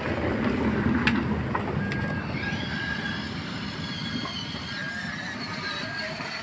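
Radio-controlled toy dump truck driving, its small electric motor and gears whirring in short runs, with one sharp click about a second in.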